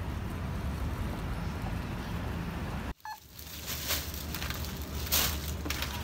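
Street ambience with a steady low rumble, which cuts off suddenly about three seconds in; then plastic produce packaging rustling and crackling as it is handled.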